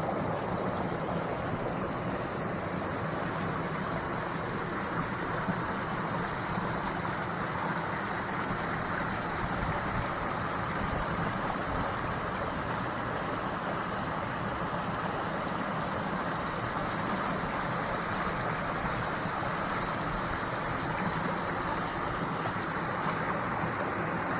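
Creek water running over granite boulders: a steady, even rushing.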